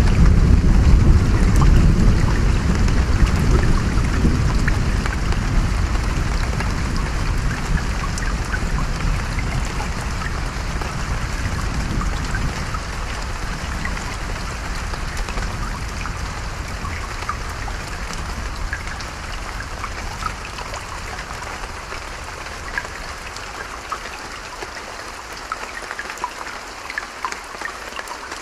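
Rain and a flowing stream, a steady patter with many small droplet ticks, under a low rumble of distant thunder that is loud at first and slowly dies away.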